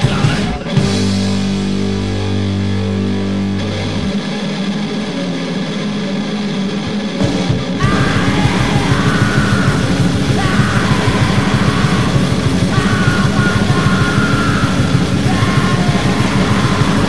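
Hardcore punk music: distorted guitar and bass holding low notes for the first few seconds, then the full band comes in loud and dense about eight seconds in.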